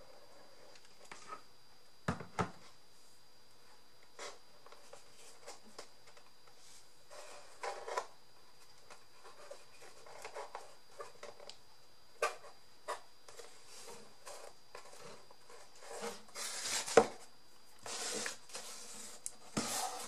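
Paper and cardboard being handled and worked by hand: scattered taps and clicks with short bursts of rustling, busier and louder in the last few seconds, with one sharp click about three seconds before the end.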